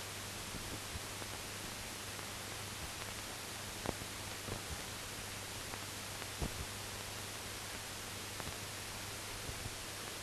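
Steady hiss with a low hum and a few scattered clicks, the loudest about four and six and a half seconds in: the empty soundtrack of a silent newsreel transfer.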